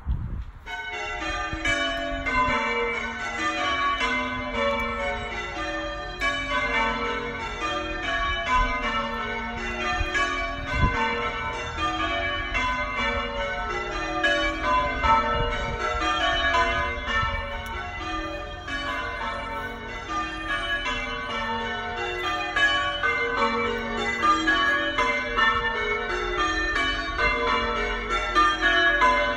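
Church bells ringing changes: a peal of several bells struck one after another in rows that step down in pitch from the highest bell to the lowest, over and over. The ringing starts about half a second in.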